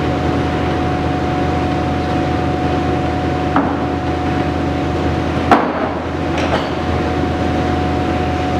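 Monarch Model 613 heavy toolroom lathe running with a steady hum and tone from its headstock, broken by three short clunks partway through, the middle one loudest, as the hydraulic pre-select speed change shifts gears.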